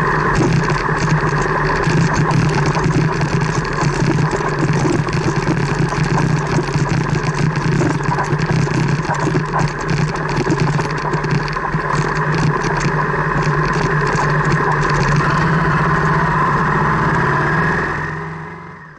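Car driving, heard from inside the cabin: a steady engine hum, with tyres crackling over a gravel track for the first half and running more smoothly on tarmac later. The sound fades out near the end.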